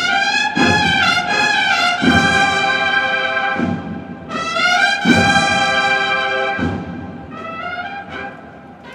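Cornetas y tambores band playing a processional march. Bugles (cornetas) sound long held chords in two phrases, with heavy drum strokes under them, and the music quietens near the end.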